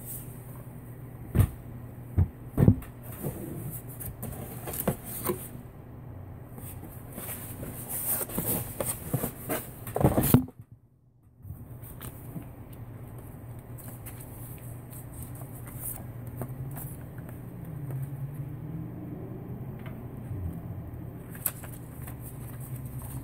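Knocks and clatter of a plastic-cased portable power station being handled and set down on a desk: a few sharp knocks in the first three seconds and a busier run of clatter about eight to ten seconds in. Between them a steady low hum runs, with the odd light click.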